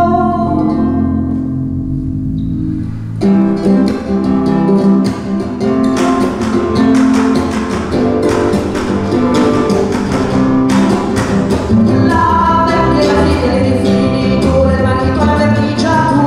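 Live folk music on piano accordion, classical guitar and double bass: a held accordion chord for about three seconds, then the guitar comes in with rapid plucking over the accordion and bass.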